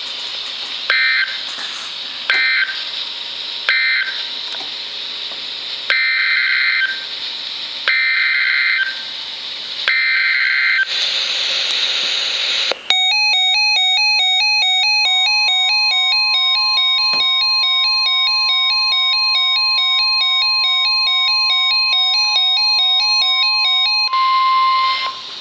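Emergency Alert System tones on NOAA Weather Radio. First three short screeching digital data bursts, the end-of-message code closing the severe thunderstorm warning. Then three longer data bursts, the header for the special marine warning. After a brief hiss, a repeating electronic alternating-tone alert plays for about ten seconds, with the steady single-pitch weather radio warning alarm tone joining it and running on almost to the end.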